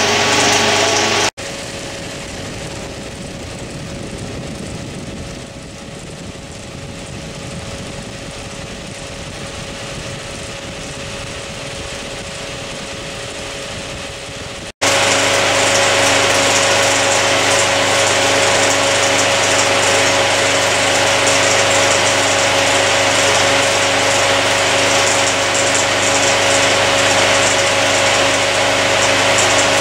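A Bauer P5 16mm projector and a spinning Nipkow scanning disk running together, making a steady mechanical whir. The whir drops quieter and plainer about a second in, then comes back louder with a steady whine about halfway through.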